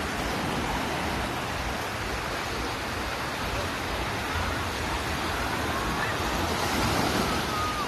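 Steady rush of sea surf washing onto a sandy beach, with wind rumbling on the microphone and faint distant voices.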